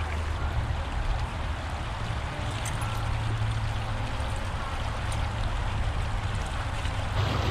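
A small stream running steadily, with the low, steady hum of distant highway traffic underneath. The water grows louder near the end.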